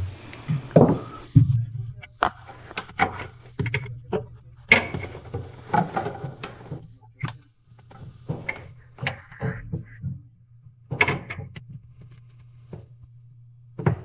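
Irregular clicks, taps and rubbing of hard plastic as a refrigerator thermostat in its housing and its capillary tube are handled and pressed into place, over a low steady hum.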